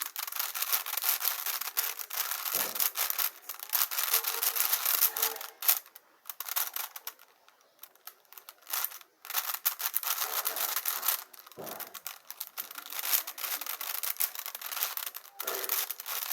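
Plastic 5×5 Rubik's cube being turned quickly by hand, its layers clicking and rasping in rapid runs, with a pause of about three seconds near the middle.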